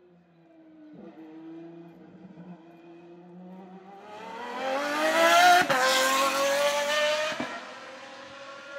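Pagani Zonda R's Mercedes-AMG V12 accelerating hard out of a corner, its note climbing through the revs. It changes gear with a brief drop in pitch about five and a half seconds in, at its loudest as it passes, and shifts again near the end as it pulls away.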